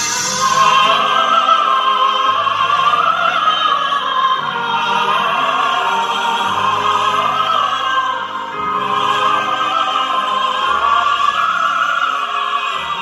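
A soprano and a baritone performing an operatic-style duet with orchestral accompaniment, amplified through a hall's PA speakers. The voices hold long, sliding notes.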